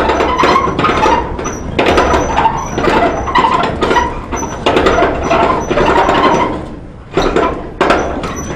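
Overhead rope hoist and ceiling pulleys lifting a rooftop tent, working in a quick run of short mechanical strokes about two a second, with a brief pause near the end before a couple more.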